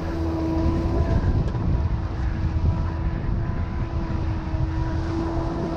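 Twin Honda outboard motors running steadily at trolling speed: a low engine rumble with a steady hum, over the rush of water in the boat's wake.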